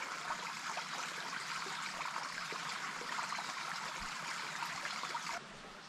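Creek water running over rocks in a steady wash, dropping off abruptly a little after five seconds in.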